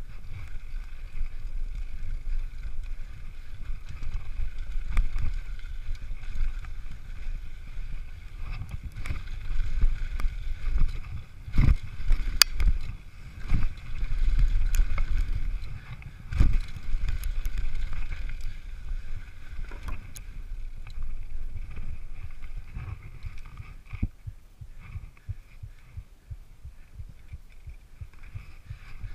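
Mountain bike descending a rough trail, heard from a camera mounted on the bike or rider: wind rushing over the microphone and tyres rumbling over dirt, with clattering and sharp knocks as the bike hits bumps, the hardest about twelve and sixteen seconds in.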